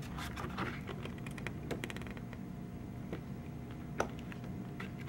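Pages of a glossy photobook being turned and handled: a quick run of clicks and rustles in the first two seconds or so, then scattered clicks with one sharper one about four seconds in.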